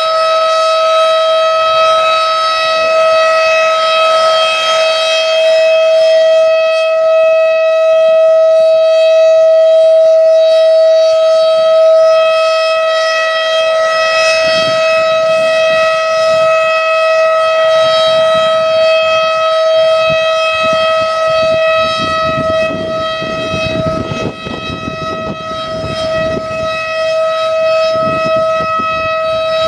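Federal Signal Thunderbeam 12-port civil defense siren sounding a loud, steady tone that holds one pitch throughout: the steady alert signal. Wind rumbles on the microphone in the second half.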